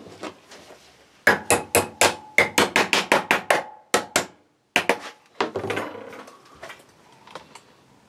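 Hammer driving wire staples into a timber batten: a quick run of about fifteen sharp blows, then a few slower strikes and some lighter taps.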